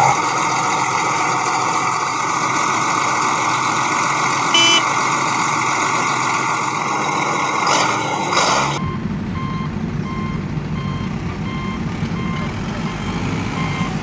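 Heavy machinery running, with a short tone about halfway through. Then a low engine rumble sets in with a reversing alarm beeping about twice a second.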